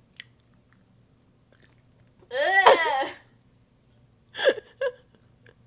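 A woman's wordless vocal outburst, a pitched cry that rises and then falls, lasting under a second, as a reaction to the sharp sourness of a pickle. A shorter vocal sound follows about two seconds later.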